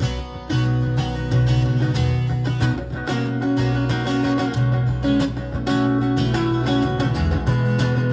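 Live instrumental music: baritone guitar strumming chords over sustained low bass notes that change every second or two, with no singing.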